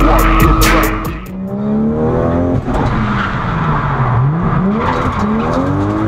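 Nissan Silvia S14 drift car's engine heard from inside the cabin, revs rising and falling repeatedly with tyre skid noise under it. A rapid crackle of clicks dies out about a second in; the revs sink to a low note about four seconds in, then climb steeply and hold high.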